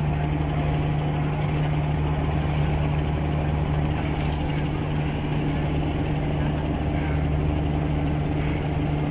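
Steady low engine hum of a river passenger launch under way, an even drone with a constant pitch.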